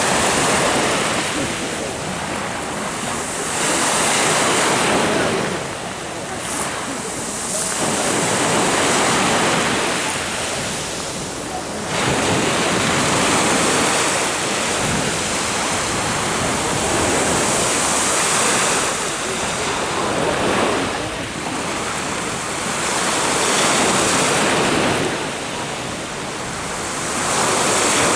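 Sea of Azov waves breaking on the shore, the wash swelling and falling back about every four to five seconds, with wind on the microphone.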